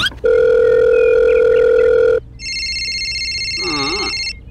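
Telephone sound effects: a steady phone tone held for about two seconds, then a phone ringing with a rapid high trill for about two seconds.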